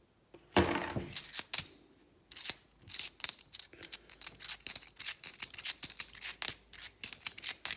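Stack of UK 50p coins clinking in the hand as they are thumbed through one by one. A short clatter about half a second in, then from about two seconds on a fast run of small metallic clicks with a high ring.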